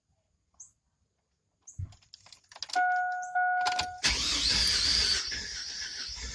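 Clicks and a short steady electronic tone from the truck as the key is turned, then from about four seconds in the Silverado's 4.3 litre V6 being cranked by the starter without catching, a crank-no-start.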